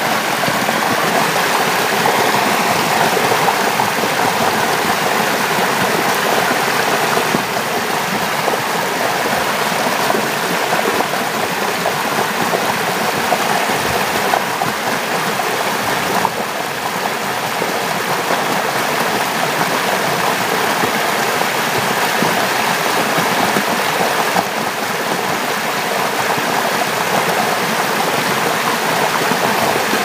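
Muddy stream pouring over small cascades: a loud, steady rush of flowing water.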